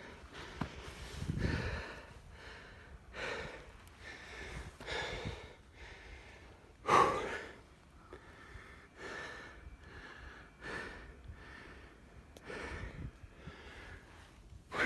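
A person breathing heavily, a breath about every two seconds, with one louder, sharper breath about seven seconds in.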